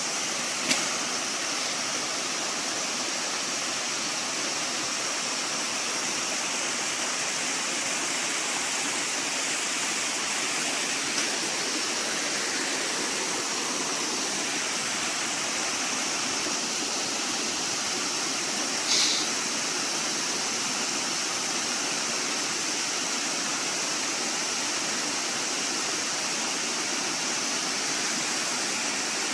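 Rocky stream rushing over boulders and small cascades, a steady hiss of running water. A few brief clicks break through it, the sharpest about two-thirds of the way through.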